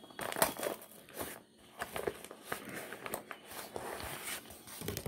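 Brown paper mailer envelope rustling and crinkling as it is handled and opened by hand, with irregular crackles and small taps and a brief lull about a second and a half in.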